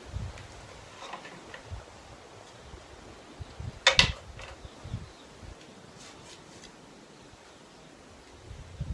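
Light knocks and clicks of parts being handled during assembly, with one sharp click about four seconds in, over a faint steady background.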